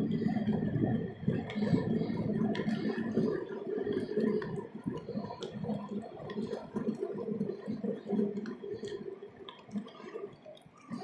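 Skate wheels rolling over coarse asphalt: a steady rumble with a low hum, scattered small ticks and an uneven swell and fade.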